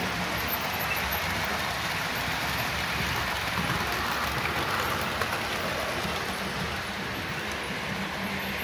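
Model train running on the layout: a low steady hum over a continuous hiss.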